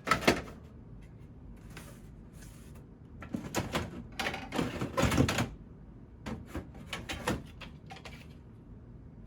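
Plastic clatter and knocks of Wheelock RSS wall-mount fire alarm strobes being handled and sorted in a box: a sharp knock at the start, then several bursts of clattering, loudest about halfway through.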